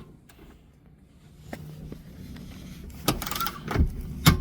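A faint click, then from about three seconds in several sharp knocks and a short rattle: tools and seat fittings being handled and set down as the seat bolts are finished off.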